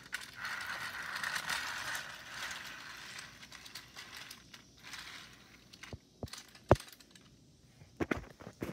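Battery-powered toy R160 subway train running on plastic track. Its small motor and gears whir steadily, then fade away after about three seconds. A few sharp clicks follow near the end.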